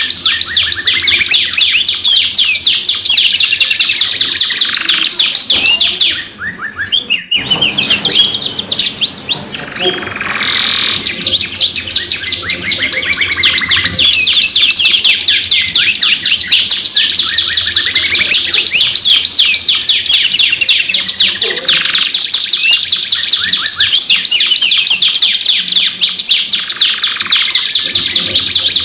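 Domestic canaries singing vigorously in long, rapid trills and rolling chirps, with a brief break about six seconds in before the song picks up again.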